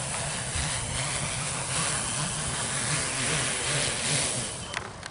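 DJI E1200 motors and propellers on a quadcopter descending under automatic landing: a steady propeller drone with a wavering low hum and a hiss of air. Near the end it drops in level, with a few clicks.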